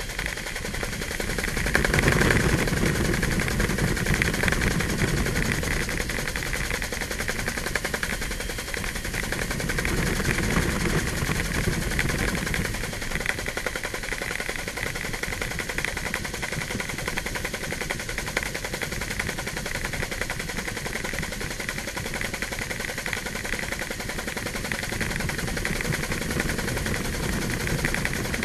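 Helicopter in flight heard from on board: the rotor blades chop rapidly and steadily over the engine's drone, a little louder a couple of seconds in.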